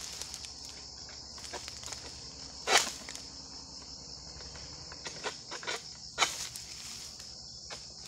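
A steady, high-pitched insect drone fills the background. A few short, sharp crunches cut across it, the loudest about three seconds in and several more around five to six seconds in.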